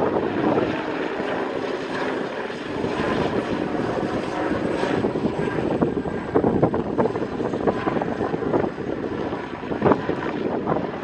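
Westland Scout helicopter flying past in a display, its Rolls-Royce Nimbus turboshaft and rotor blades running steadily, the sound rising and falling a little as it manoeuvres.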